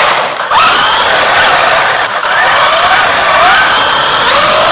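WLToys 144001 RC buggy's electric motor and drivetrain whining loudly over road noise from the tyres, the pitch rising and falling with the throttle. It drops out briefly twice, near the start and about two seconds in, then winds back up.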